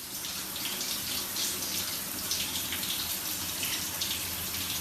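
Water running steadily from a tap, splashing into a sink.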